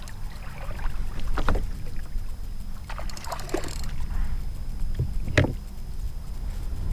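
Low wind rumble and water slapping around a fishing kayak at sea, with a few knocks of gear, the loudest about five seconds in, and a brief run of rapid ticking a little past halfway.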